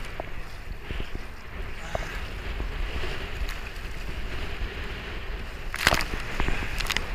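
Wind buffeting an action camera's microphone over water lapping and sloshing against a plastic sit-on-top kayak as it is paddled through choppy swell. About six seconds in a wave breaks over the bow in a loud splash of spray, with a smaller splash just before the end.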